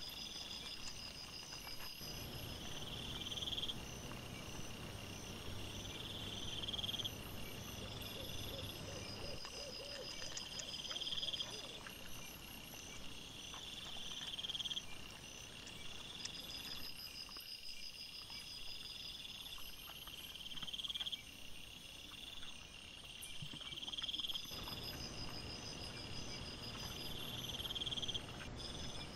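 Night insect song: a bush cricket's high buzzing trills, each about a second long, repeating about every two seconds, with fainter insect chirps above it. Under it is faint rustling of leaf litter as wild boar piglets root about.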